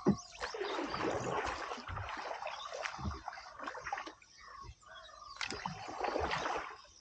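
Oars or paddles pulling through water beside a small rowing boat: two long swishing strokes, the first starting just after the start and the second near the end, with a few low knocks in between.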